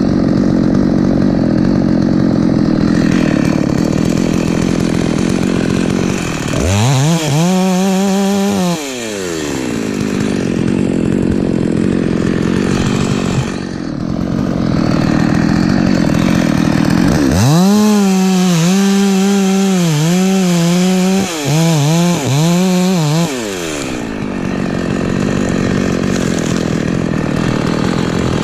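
Husqvarna 254 two-stroke chainsaw running hard, rising to a high, clean whine twice: briefly about seven seconds in, then for several seconds from about seventeen seconds in, its pitch wavering before it falls back to a lower, rougher running note.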